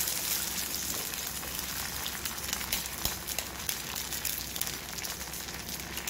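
An egg frying in hot oil on a non-stick tawa, sizzling steadily with small crackling pops.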